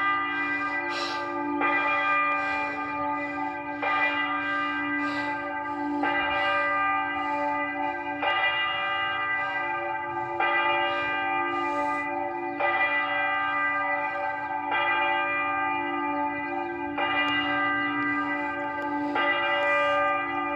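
A church bell tolling, struck on the same note about once every two seconds, nine strokes in all, each stroke ringing on into the next.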